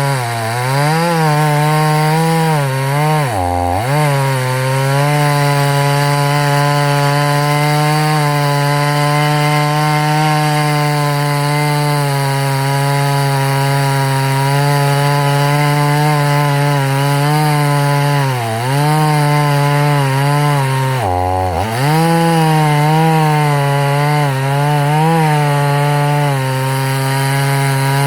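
Husqvarna 50 Rancher two-stroke chainsaw running at high revs while cutting wood. The engine pitch holds steady, dips sharply and recovers about four times.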